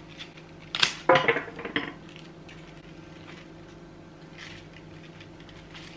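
Hand shears cutting through thick, woody protea stems: a sharp snip about a second in, then a quick run of clicks and crunches as the blades work through the tough stem. After that only a faint steady hum remains.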